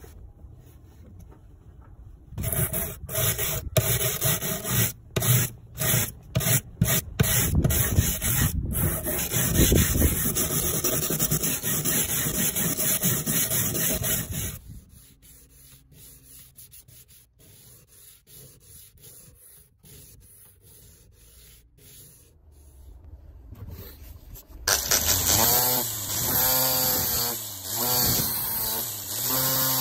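Rusty steel saw blade being hand-sanded with a sanding block: about twelve seconds of rough rubbing strokes with short breaks between them, after which it goes much quieter. Near the end a drill spins a foam polishing pad against the blade, its motor whine wavering in pitch as it is pressed on.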